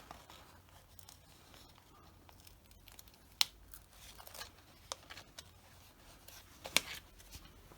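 Quiet handling of a small flat model part: faint rustling and peeling, with scattered light clicks and two sharper snaps, the louder one near the end.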